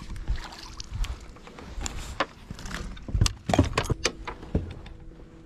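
Irregular knocks, thumps and sharp clicks of a hooked bass being hand-lined and brought aboard a bass boat, busiest from about two to four and a half seconds in.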